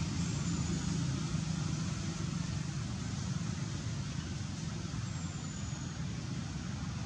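Steady low rumble with a hiss above it: outdoor background noise with no single clear source.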